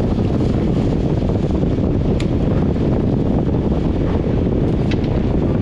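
Wind buffeting the microphone: a steady, loud low rumble that covers everything else, with two faint sharp ticks about two and five seconds in.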